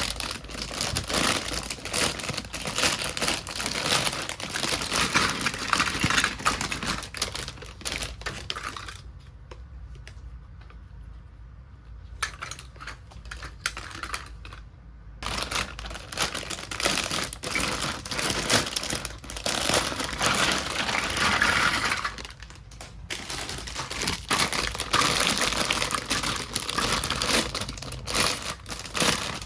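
Crinkling plastic packaging and small plastic toy kitchen pieces being handled, with many sharp little clicks and taps. There is a quieter stretch about a third of the way in.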